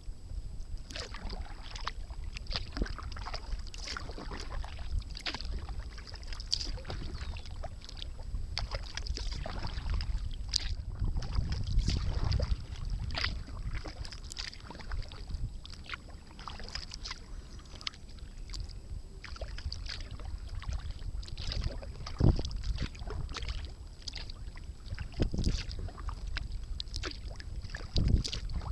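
Sea kayak being paddled: water splashing and dripping off the paddle blades in an irregular patter, over a low rumble of wind on the microphone. A couple of louder knocks come near the end.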